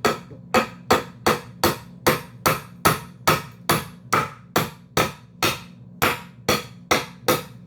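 Hammer blows in a steady, even rhythm, about three strikes a second, each sharp with a short ring, over a faint steady low hum.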